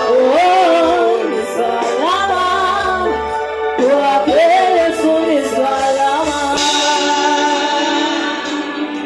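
Song with singing voices over a steady instrumental backing.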